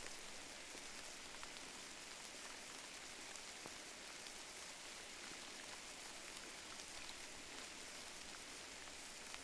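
Faint, steady hiss with scattered small ticks.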